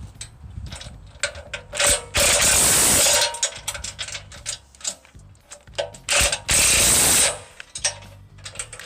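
Ratchet wrench clicking as the bolts joining the sawmill track sections are tightened, with two louder stretches of dense, rapid clicking about two and six and a half seconds in.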